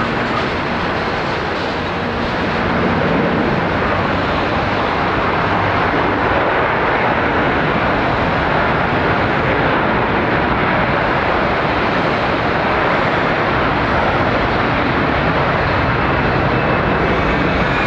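Twin-jet wide-body airliner's engines at takeoff thrust: a loud, steady jet roar that swells about two to three seconds in and then holds as the aircraft rolls down the runway.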